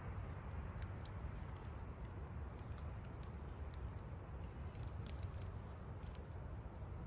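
Fire crackling: irregular small pops and snaps over a low steady rumble, with one sharper pop about five seconds in.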